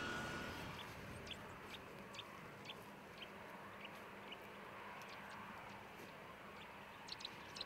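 A small bird chirping in short high notes, about one every half second, with a quicker flurry of chirps near the end, over faint open-air background.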